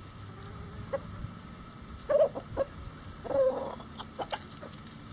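Bantam chickens clucking: a couple of short clucks about two seconds in, then a longer one near the middle, with a few sharp ticks around them.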